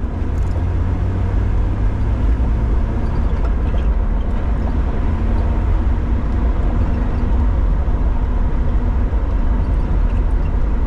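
A 2006 Jeep Wrangler's engine running steadily.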